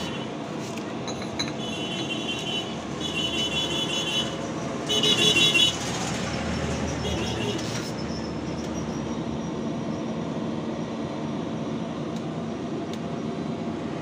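Steady background rumble like passing road traffic, with about five short, high-pitched horn toots in the first half, the loudest about five seconds in.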